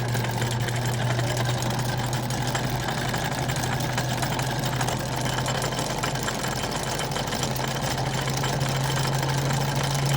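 Sailboat's inboard engine running steadily at low revs in reverse, backing the boat away from its anchor as the chain is paid out.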